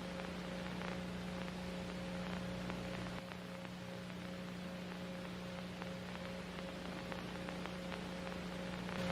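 Steady electrical hum with a fainter higher tone over a light hiss and faint crackling static. The deepest rumble under the hum drops away about three seconds in.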